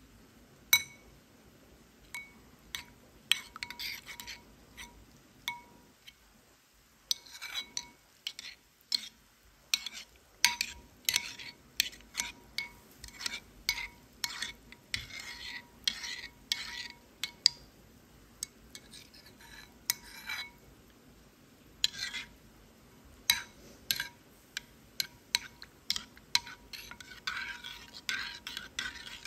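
Metal spoon stirring cocoa powder into milk in a ceramic bowl, clinking irregularly against the bowl's sides, each clink ringing briefly. The clinks thin out for a few seconds early on, then come thick and fast near the end.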